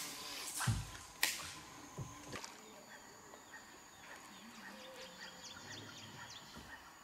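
A few sharp knocks and swishes from handling in a small boat in the first two seconds or so. Then a steady, high insect drone with scattered chirps and ticks from tropical riverside vegetation.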